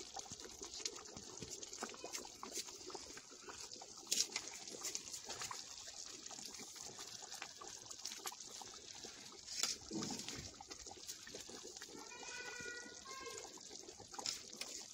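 Kadhi simmering in a kadai over a wood-fired clay chulha: a faint, steady bubbling hiss with many small pops and crackles from the pot and the burning wood. A short animal call about twelve seconds in.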